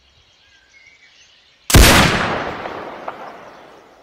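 A single gunshot about two seconds in: a sharp crack followed by a long echoing tail that fades away over about two seconds.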